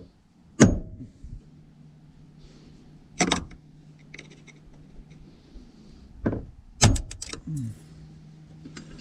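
Hammer blows on the steel door hinge of a Chevy Silverado, working the old roller pin free: four sharp metallic knocks, the last two close together.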